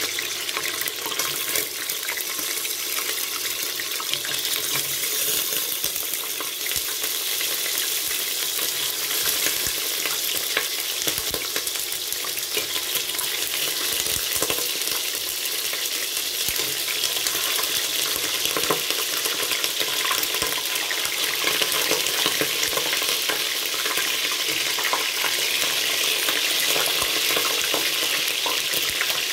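Cubes of raw pork frying in hot cooking oil in a stainless steel pot: a steady sizzle with fine crackling spatter, growing a little louder in the second half as more pieces go into the oil.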